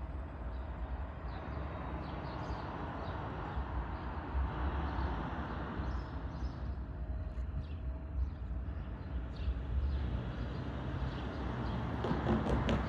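Steady outdoor city-street ambience with a heavy, uneven low rumble and a few faint chirps; several short clicks come near the end.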